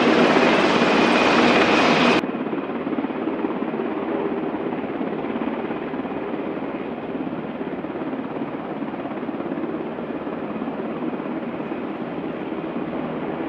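Military helicopters running on an airfield: a steady, full rotor-and-turbine noise from a UH-60 Black Hawk, which changes abruptly about two seconds in to a quieter, duller, steady rotor noise from AH-64 Apache helicopters.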